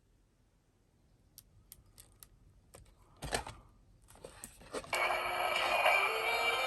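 A paper card is handled with scattered clicks and rustles and one louder knock. About five seconds in, the commemorative ticket's tiny sound chip starts playing its electronic imitation of the Keikyu train's Siemens GTO inverter 'doremifa' scale through a small speaker, stepping up in pitch.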